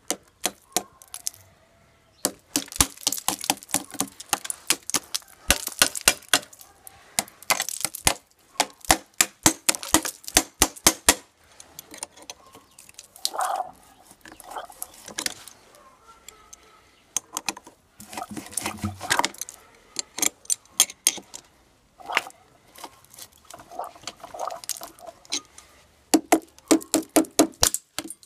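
Ice being chipped and broken off a frozen small motorcycle engine with pliers and a wrench: rapid sharp cracks and clinks of metal tools striking and prying at ice and the aluminium cylinder fins. They come in quick runs with short pauses between.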